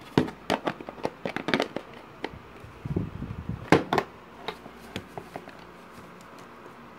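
Clicks and knocks of a plastic digital multimeter being handled and stood up on its stand on a desk, with a duller thump about three seconds in and the loudest knock just before four seconds.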